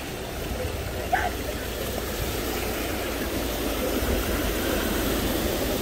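Floodwater rushing steadily across a road while a vehicle drives through it, its tyres churning the water, over a low rumble. A brief sharp sound stands out about a second in.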